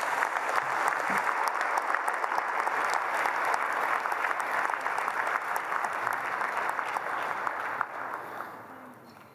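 Large audience clapping, with sustained applause that dies away near the end.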